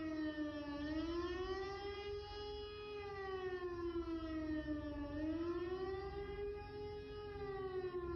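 Air-raid siren wailing, its pitch slowly rising and falling about once every four seconds: the signal of an air-raid alert calling everyone to take shelter.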